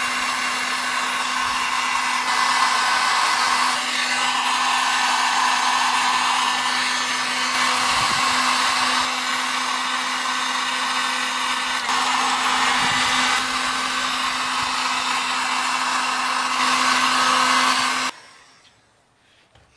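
Electric heat gun blowing steadily, its fan motor giving a constant low hum, while it shrinks marine heat-shrink tubing over a wire butt connector. It switches off about two seconds before the end.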